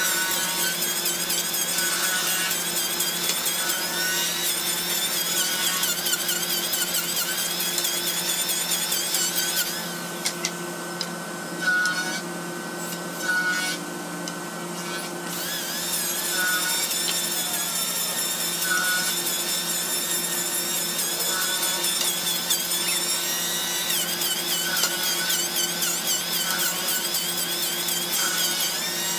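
Electric hand planer running and shaving the edge of a thick solid-wood round table top, its high cutting whine wavering in pitch as it moves. About ten seconds in, the cutting stops for roughly five seconds, leaving a steady hum and a couple of knocks, then resumes.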